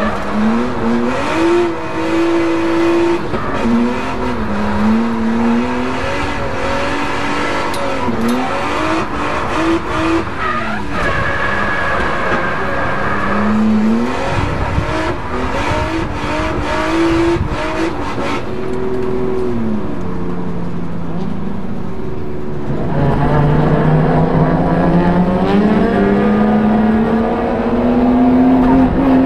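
Nissan R32 Skyline's turbocharged RB20 straight-six, fitted with a zenki R33 turbo at 0.9 bar boost, revving up and dropping back again and again as the car is driven hard through corners. Near the end it pulls in one long, steadily rising run.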